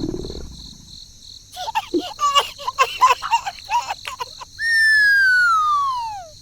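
Cartoon sound effects: a burst of quick, high squeaky chatter, then one long falling whistle that slides steadily down in pitch over about two seconds.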